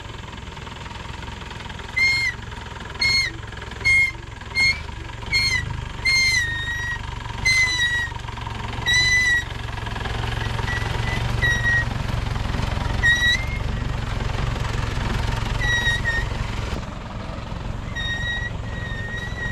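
Short, high whistled notes with a slight upward lilt, repeated about once a second and then more sparsely, a few held longer near the end, over a steady low rumble.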